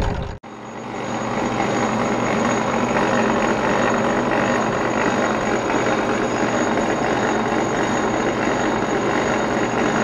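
Honey extractor running with a steady mechanical hum. The sound drops out sharply for a moment about half a second in, then returns and holds level.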